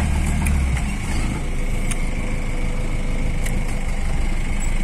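Off-road Jeep engine running slowly, heard from inside the cabin as it crawls along a rough dirt track, with a few short knocks or rattles.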